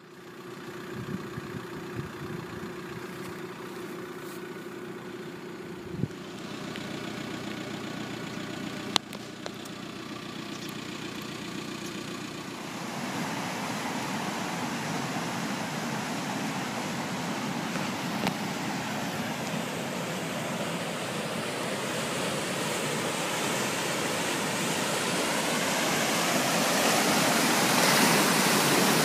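A river in flood rushing past: a dense, steady noise of fast-moving water that grows louder from about halfway through. Before that there is a lower steady hum with two sharp knocks.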